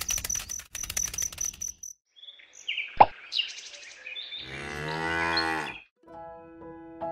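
A cow mooing once, one long call of about a second and a half that rises in loudness, roughly halfway through. Before it, fast light ticking with a repeated high chirp, then a sharp pop; a gentle music tune starts near the end.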